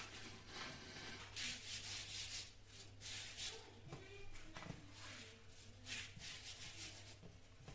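Soft, irregular rustling and rubbing of a thin rolled dumpling-dough sheet as hands lift and spread it across a floured wooden worktop, over a steady low hum.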